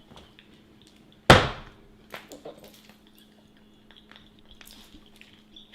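A single sharp knock or thump about a second in, fading quickly, with a few faint clicks after it over a low steady hum.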